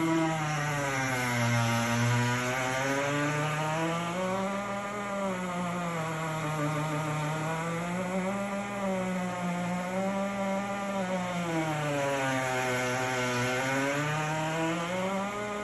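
GE Opal countertop nugget ice maker making a loud, continuous squealing drone, its pitch wavering slowly up and down every few seconds. This is the fault noise that the machine developed after about two weeks of use.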